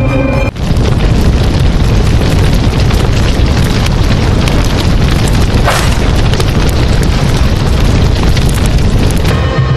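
Loud, continuous explosion-like sound effect, an even noise with no tune. It cuts in about half a second in and gives way to background music near the end.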